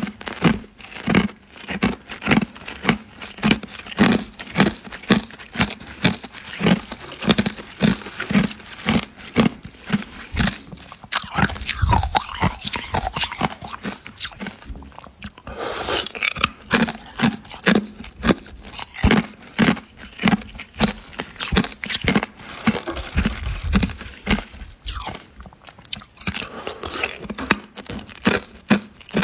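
A person chewing hard ice cubes, crunching them between the teeth in a steady rhythm of about two crunches a second.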